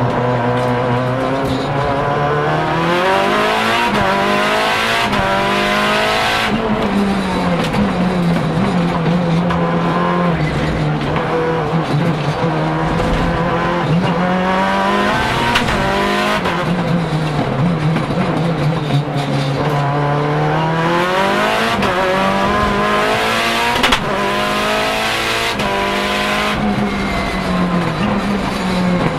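Lancia Delta HF Integrale EVO Proto's turbocharged 2.0-litre four-cylinder engine running hard, heard from inside the cabin: the revs climb and fall again and again, with quick sequential-gearbox shifts that snap the pitch suddenly, about six seconds in and again near the end.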